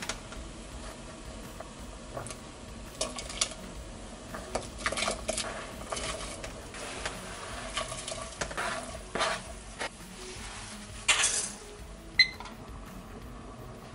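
Cut vegetables scraped by hand off a cutting board and dropped into a stainless steel pot of broth: a run of soft scrapes and light knocks, then one sharp metallic clink near the end.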